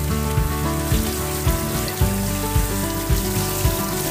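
Handheld shower head spraying water in a steady hiss, under background music with a steady beat of about two a second.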